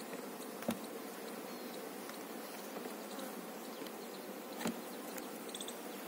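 A colony of honeybees buzzing steadily over an opened hive box. Two sharp knocks come through, one just under a second in and another near five seconds.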